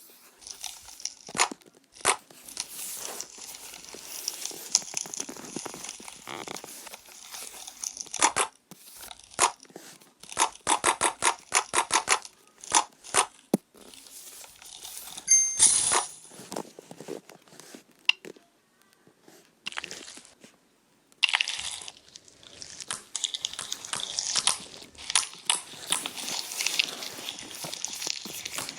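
Slime squished, poked and stretched by hand: runs of crackly, clicky pops and bursts of rustling, with short pauses between handlings.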